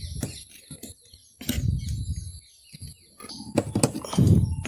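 Small metal clicks and clinks from a scooter's centrifugal clutch shoe springs being hooked into place on the clutch plate, with two dull thumps of the assembly being handled, about a second and a half in and near the end.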